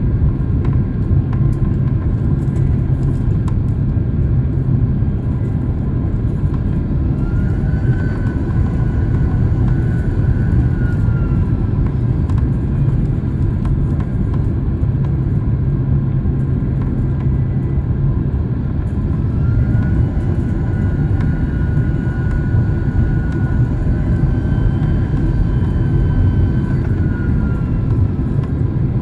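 Steady low rumble of engines and airflow inside a jet airliner's cabin on its descent. Twice a high whine rises, holds for a few seconds and falls away.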